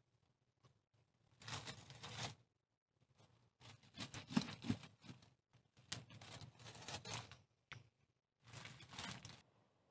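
Aluminium foil crinkling and rustling in four bursts, about a second or more each, as a knife cuts through foil-wrapped baked meat and a hand presses and pulls it apart.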